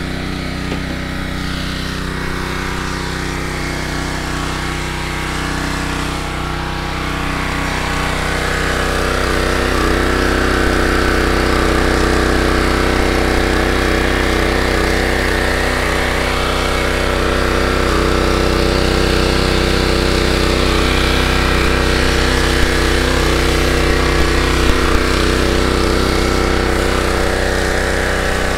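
The 6.5 hp Predator gas engine of a 3100 psi pressure washer runs steadily under load, with the hiss of its soapy spray hitting a truck's paint. The spray hiss gets a little louder about eight seconds in.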